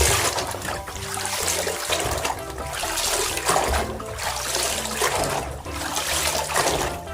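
Water trickling and splashing as a muddy toy truck is rinsed and scrubbed in water, under background music.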